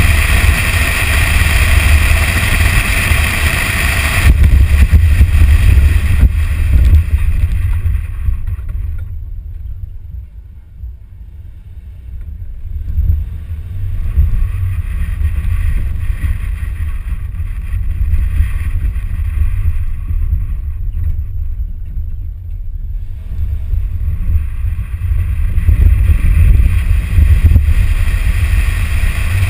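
Toyota Tacoma driving on a dirt trail, heard from a camera mounted on the outside of the truck: a steady low rumble of wind on the microphone mixed with engine and tyre noise. The hiss dies away for a stretch in the middle and builds back up near the end.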